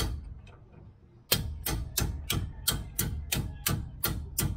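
Ratcheting wrench clicking in an even rhythm, about three clicks a second, as a brake caliper bolt is tightened, with a brief pause about a second in before the clicking resumes.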